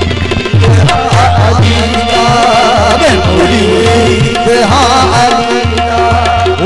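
Qawwali music: a tabla playing quick strokes with sliding bass notes, under a melody that wavers in pitch.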